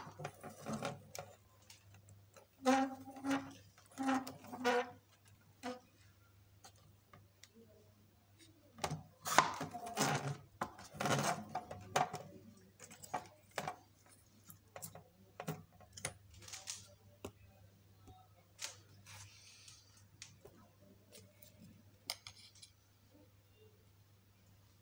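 Irregular light clicks and rattles of a small homemade wooden-stick model seed drill being handled, busiest a few seconds before the middle, over a steady low hum.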